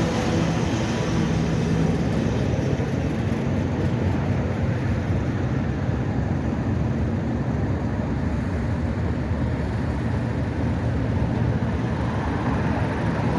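Class 37 diesel locomotives' English Electric V12 engines running with a steady low drone; a pitched note in the engine sound fades about a second in and comes back near the end.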